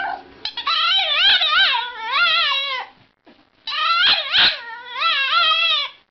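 French bulldog howling in two long, warbling calls whose pitch wavers up and down, with a short pause between them about halfway.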